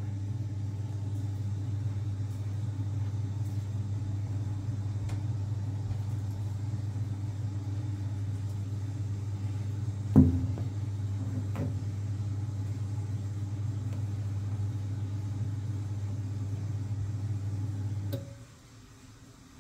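Ideal Mini C24 boiler's central heating circulating pump humming steadily after power is switched back on, then cutting off shortly before the end. A single sharp knock about halfway through is the loudest sound. The pump runs, but its micro switch is not proving it, so the fan gets no power and the boiler does not fire.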